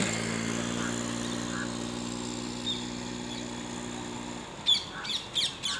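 Motorcycle engine running at a steady pitch and fading away, dying out after about four seconds. Then a few sharp, high bird chirps near the end.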